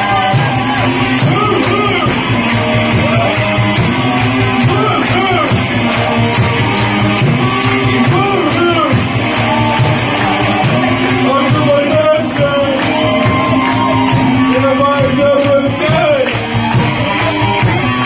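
Rock music with singing, guitar and a steady drum beat.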